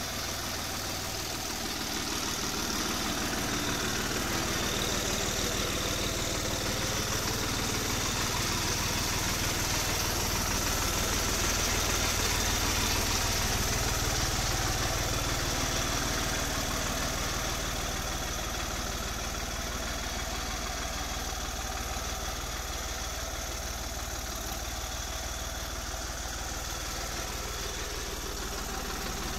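New Holland 3630 tractor's three-cylinder diesel engine running steadily at low revs as the tractor drives slowly. It gets a little louder toward the middle and then eases off.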